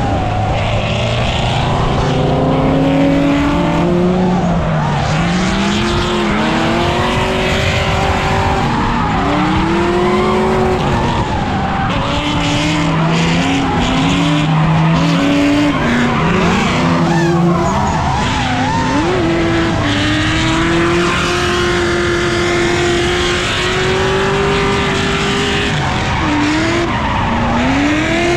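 Drift car engine revving up and down, over and over, through a drift run, with tires screeching and sliding throughout.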